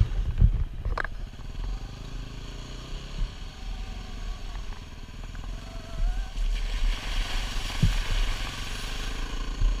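Yamaha WR250R's 250 cc single-cylinder four-stroke engine running steadily while the dirt bike rides along a rough gravel track, heard from the rider's helmet. A few sharp knocks come near the start and about eight seconds in, and a hiss builds from about six and a half seconds to near the end.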